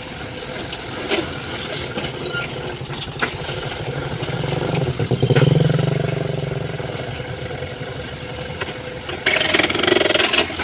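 Heavy diesel engine of earthmoving machinery working, its note swelling louder about halfway through and then easing off, with scattered knocks and clanks. A loud rattling burst comes near the end.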